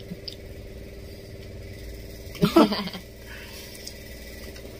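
A steady low machine hum with a few faint clicks, and a short voiced sound from a person eating, an 'mm'-like murmur, about two and a half seconds in.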